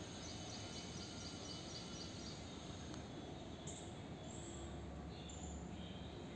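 Faint outdoor background hiss with small birds calling: a quick run of high chirps, about four a second, over the first two seconds, then a few scattered higher calls.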